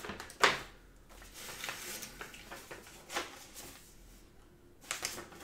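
Paper rustling as a booklet and loose printed letter sheets are handled and leafed through, with a sharp crackle about half a second in and a few fainter rustles after.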